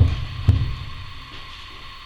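Wood fire in a furnace firebox, with a single knock about half a second in over a steady hiss.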